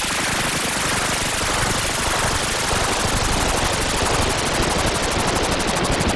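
Synthesized sci-fi sound effect: a dense, rapid stutter of electronic noise pulses, many a second, holding a steady loudness. The pulsing grows sharper near the end.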